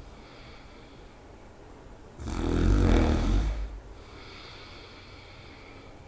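A person snoring in their sleep: one loud snore lasting about a second and a half, a little over two seconds in, with quieter breathing before and after it.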